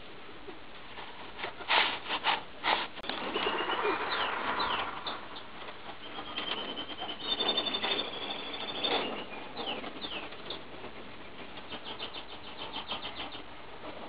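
Tippler pigeons' wings flapping, with a few loud wing claps about two seconds in and a fast flutter of wingbeats near the end, as birds take off and land on the loft roof. Bird calls come in between.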